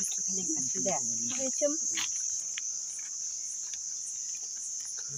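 Steady, high-pitched insect chorus: a continuous shrill drone that holds on unchanged throughout.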